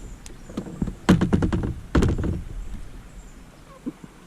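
Knocks and thuds against a kayak: a quick flurry of several about a second in and another strong knock at about two seconds, then dying away.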